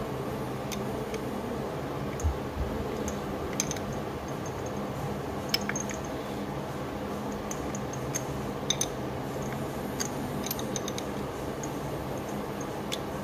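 Light, irregular metallic clicks and taps from a clutch master cylinder and its line fitting being handled and threaded in by hand, over a steady low hum.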